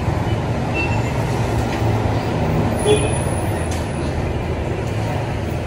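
A steady low rumble of background noise, even throughout.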